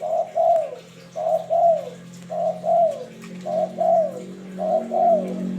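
Spotted dove cooing a repeated two-note phrase, the second note falling off at the end, about one phrase a second, five times. A steady low hum runs beneath.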